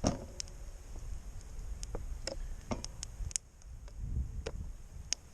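Irregular light clicks and ticks at a charcoal grill, about ten of them spread unevenly, over a low rumble of wind.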